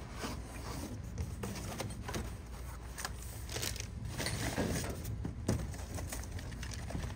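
Cardboard shipping box being handled and shifted by hand: irregular scrapes, taps and rustles of the cardboard.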